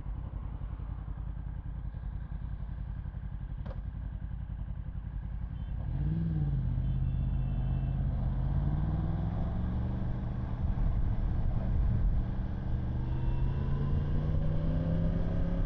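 Yamaha R1 inline-four engine running at low, steady revs under road and wind noise, heard from a microphone inside the rider's helmet. About six seconds in the engine note rises and falls briefly, then it climbs gently over the last few seconds.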